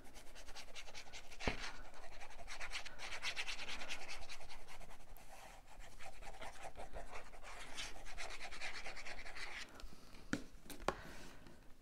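Paper rubbing and scratching: a glue bottle's applicator tip dragging across cardstock, and a hand pressing and smoothing the paper down, with a few light taps near the end.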